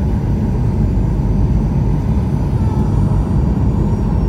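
Jet airliner cabin noise during the landing rollout: a loud, steady low rumble of the engines and the wheels rolling on the runway.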